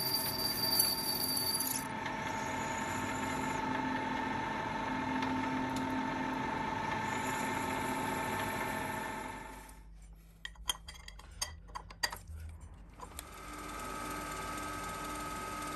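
Metal lathe running steadily with a constant whine while a twist drill is fed into a spinning brass bar. About nine and a half seconds in, the running stops and a few sharp clicks and knocks follow. At about thirteen seconds a machine spindle holding a drill chuck starts up with a steady, higher whine.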